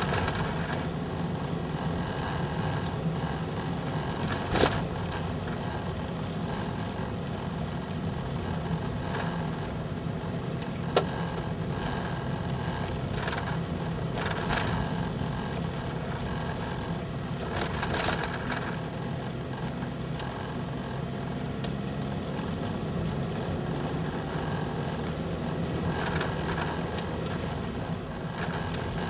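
Motor vehicle driving on a paved road, heard from on board: steady engine hum and road noise, with two sharp clicks along the way.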